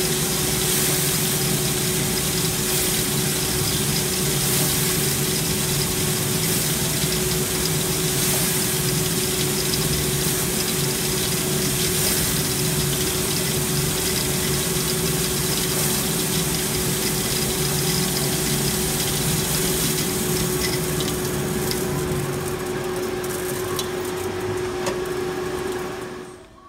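Giesen W15 coffee roaster's cooling tray running: a steady hum with a rushing air noise as the cooling fan draws air through the perforated tray and the stirring arms sweep the roasted beans out into the bin. The noise eases slightly about 22 seconds in and falls away near the end.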